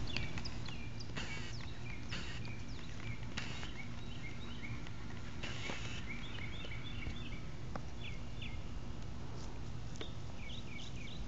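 Small birds chirping: many short, high calls repeated in quick clusters, over a steady low background hum, with a few brief rustles.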